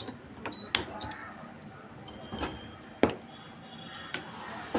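Several sharp metallic clicks, spaced a second or more apart, as a gas stove burner is lit with a handheld spark lighter.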